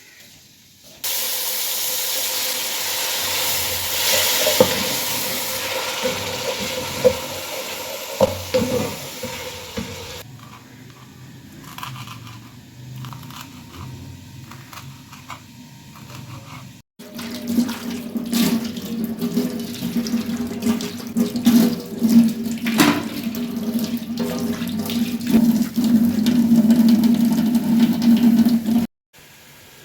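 Kitchen tap water running into a sink, heard in a few separate shots joined by hard cuts, with small clicks and clinks of things being handled under it.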